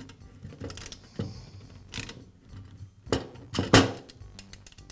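Nut driver and screwdriver clinking on a heater-element terminal screw and nut as the nut is tightened against the vent-fan-heater's metal housing: a handful of scattered metallic clicks and knocks, the loudest about three-quarters of the way in.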